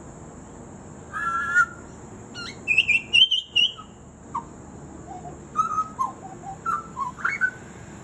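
Pied butcherbird singing a varied string of whistled and warbled phrases, part of its mimicking song. The phrases come in separate short bursts with pauses between, and the highest, loudest notes fall about three seconds in.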